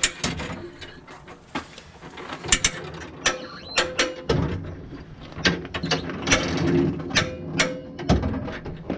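Irregular mechanical clicks and knocks, about a dozen, spread unevenly, with two short squeaks.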